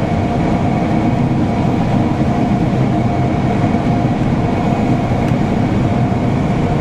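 John Deere combine heard from inside its cab: a steady, loud mechanical drone of the engine and threshing machinery running, with a faint constant whine over the rumble.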